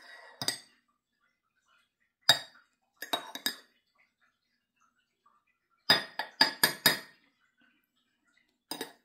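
Metal spoon clinking against a ceramic mug while scooping milk foam: a few separate clinks, then a quick run of about five taps around six seconds in, and one more near the end.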